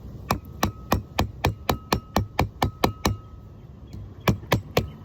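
Hammer blows on a wide driver placed over a new front-hub grease seal, driving the seal into its bore in the rotor hub: about a dozen even strikes at about four a second, a pause, then three more near the end, with a faint metallic ring.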